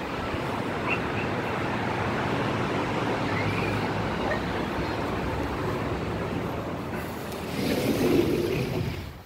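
Steady outdoor rush of distant road traffic and wind heard from a high balcony, swelling briefly near the end and then cutting off.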